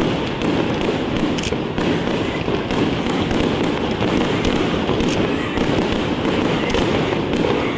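Fireworks display: a continuous rumble of bursting shells, with sharp bangs every second or few.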